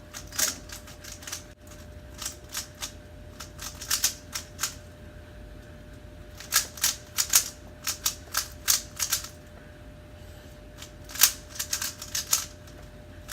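Rubik's Cube being turned fast by hand in a speedsolve: quick runs of plastic clicks and clacks from the layers snapping round, broken by short pauses. A faint steady hum sits underneath.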